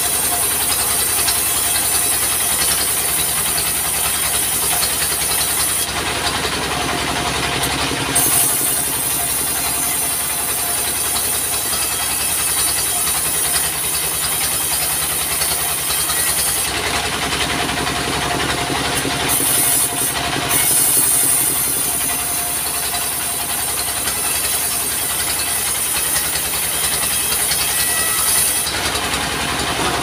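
Diesel engine running steadily, driving a bandsaw as its blade cuts lengthwise through a log. The high hiss of the sawing drops out for a second or two about three times.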